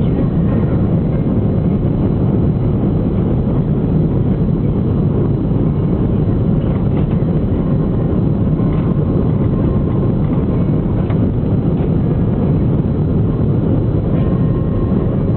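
Jet airliner cabin noise: a steady, loud low rumble of the engines and rushing air, heard from a window seat near the wing during the low descent on approach.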